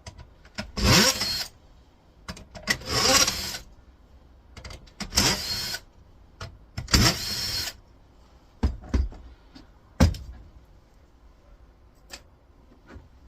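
Small handheld power driver whirring in four short bursts, each under a second, as it backs out the screws holding a monitor's back plate, followed by a few sharp clicks as parts are handled.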